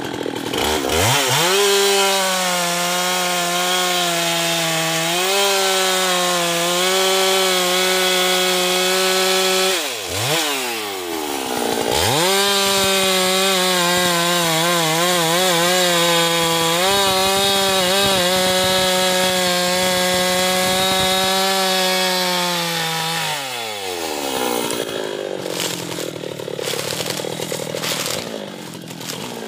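Husqvarna two-stroke chainsaw run at full throttle cutting teak wood, held high and steady for two long cuts. About ten seconds in the revs drop and pick straight back up, and they fall toward idle a few seconds before the end.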